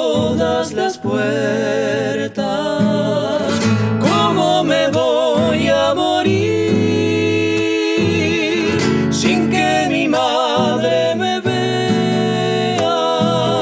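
A song accompanied by two nylon-string classical guitars, with a man singing long notes with vibrato over the plucked accompaniment. One note is held for over a second about halfway through.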